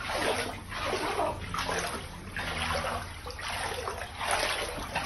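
Floodwater inside a house sloshing and splashing in regular surges about once a second, as someone wades through it.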